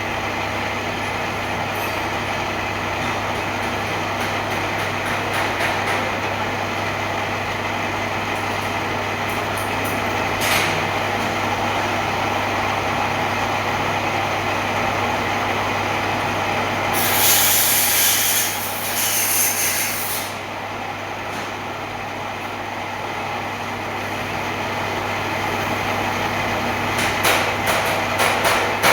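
Lathe machine running steadily with a constant electric hum. About two-thirds of the way through, a louder hiss lasts about three seconds.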